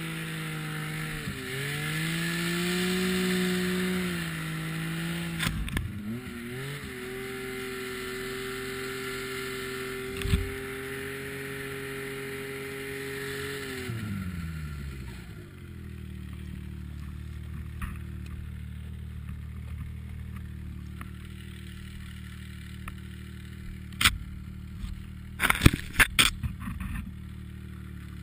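Small engine of a snow vehicle pulling through deep powder, its note dipping and recovering a couple of times, then dropping to a steady idle about halfway through as the machine comes to a stop. Near the end there are several sharp knocks and clatters, the loudest sounds here.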